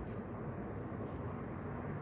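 Green-masala fish fillet shallow-frying in a little oil on a hot flat tawa: a steady, even sizzle.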